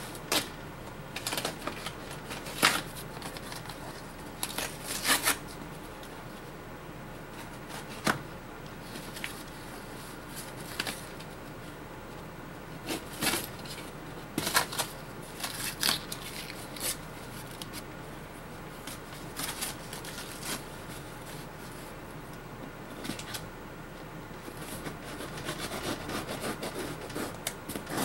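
Packing tape and cardboard on a long shipping box being cut and pulled open by hand: scattered short crackling scrapes and rips, in small clusters with quiet gaps between.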